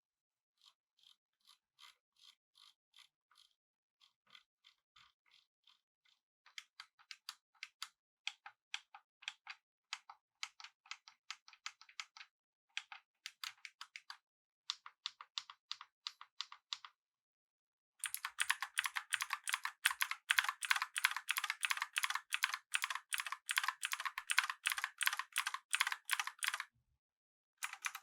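Typing on a Razer BlackWidow V3 Pro mechanical keyboard with clicky green switches. Separate keystrokes start soft and sparse, grow louder with short pauses, and then turn into a fast, continuous run of clacking keys about two-thirds of the way in. There is a brief stop before the typing resumes at the end.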